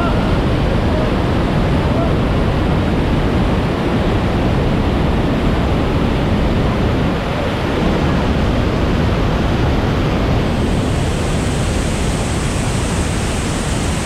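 Bridal Veil Falls pouring onto the boulders at its base, heard at close range: a loud, steady rush of falling water. A thin high hiss joins about ten seconds in.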